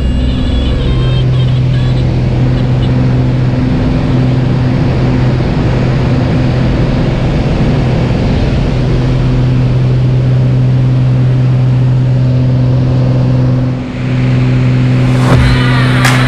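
Engine and propeller of a light high-wing single-engine plane droning at a steady pitch at takeoff power, heard from inside the cabin. The drone dips briefly about 14 seconds in.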